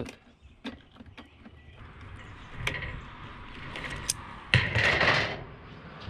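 Handling noise from working on a sump pump fitted with metal strapping: a few light clicks and knocks, then a loud scraping rustle lasting under a second about four and a half seconds in.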